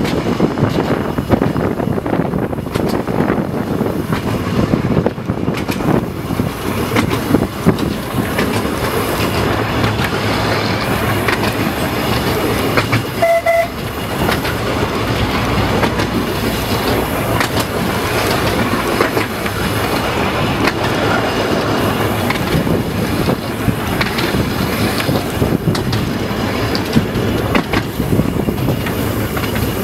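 Narrow-gauge electric tram running along the track: a steady rumble with scattered clicks from the wheels and rail joints. About halfway through comes a short horn toot.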